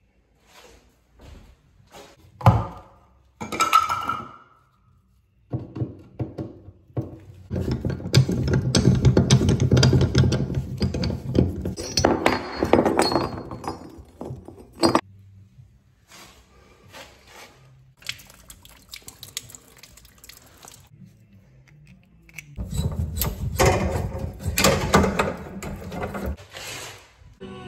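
Hands-on plumbing work noise: scattered knocks, a sharp thunk about two and a half seconds in and a brief ringing clink, then long stretches of dense clattering and rattling.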